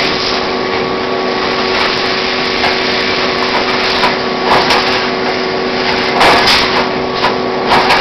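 Automatic wire mesh welding machine running: a steady machine hum with several short, sudden clanking bursts.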